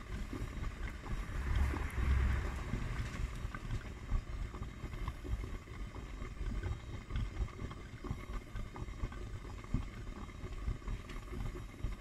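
Hotpoint front-loading washing machine with its pressure switch removed, its drum turning in a tub overfilled with foamy water, which sloshes and churns over a low rumble. A louder surge of sloshing comes about two seconds in.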